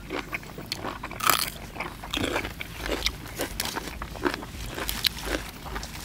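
Close-miked eating: crisp bites into raw cucumber and crunchy chewing, a run of short crunches with the loudest a little over a second in.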